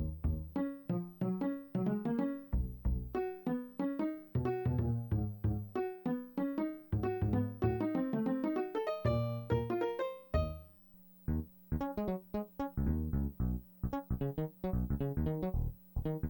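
Kawai FS640 arranger keyboard playing notes over a bass line. About ten and a half seconds in the playing fades out, and after a brief gap a new passage of shorter, choppier notes begins.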